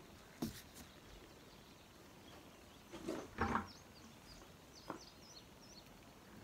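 Quiet outdoor air with a few soft knocks and a short rustle about three seconds in, from a knife and a plucked chicken being handled on a cutting board, while small birds chirp faintly in the background during the second half.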